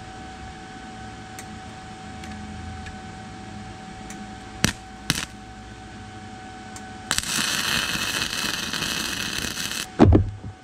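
Flux-core MIG welder arc crackling steadily for about three seconds, welding a nut onto a broken-off bolt to extract it. A steady hum and two sharp clicks come before it, and a loud thump follows right after.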